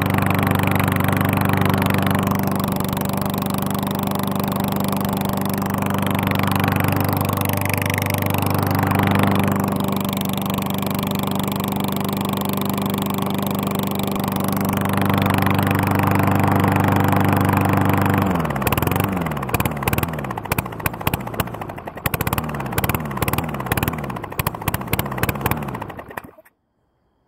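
Push mower's small single-cylinder engine running very loud with its muffler off: an open, unmuffled exhaust note held steady. About two-thirds of the way through it is shut off and coasts down, its firing pulses slowing and spreading apart until the engine stops just before the end.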